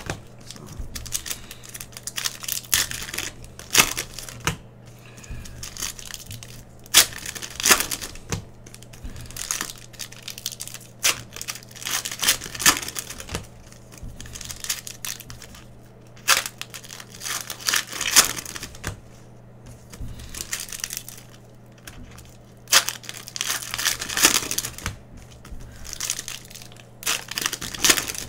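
Foil wrappers of Panini Prizm basketball card packs crinkling and tearing as the packs are ripped open one after another, in irregular bursts a second or two apart.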